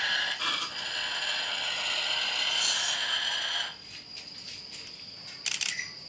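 Steady, high, buzzing insect call made of several fixed pitches, which cuts off abruptly about two-thirds of the way through. A fainter, thin, high insect tone carries on after it, and a short sharp click comes near the end.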